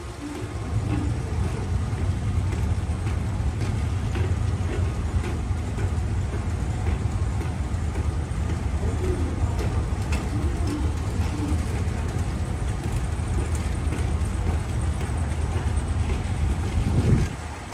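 Sumitomo Heavy Industries rubber-belt moving walkway running under a rider: a steady low rumble, with one brief louder bump shortly before the end.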